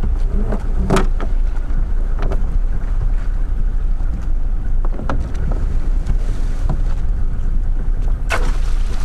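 Steady wind rumble on the microphone aboard a small skiff, with a few sharp clinks and knocks as a grapnel anchor's rope and chain are hauled aboard. The strongest clinks come about a second in and near the end.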